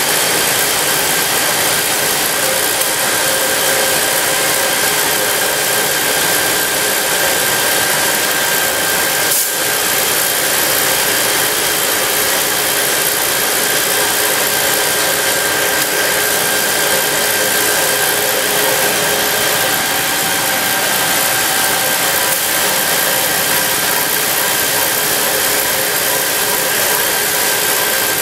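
Asphalt plant machinery running: the rotary drum dryer and its burner give a loud, steady wash of noise with a constant high whine over it.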